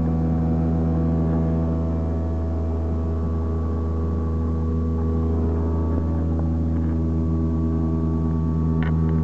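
A flushed toilet's plumbing droning loudly: a steady low hum of several deep tones held together, like a ship's horn.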